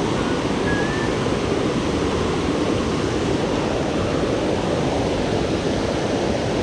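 Water pouring over a dam's man-made waterfall: a steady, full rushing with no change.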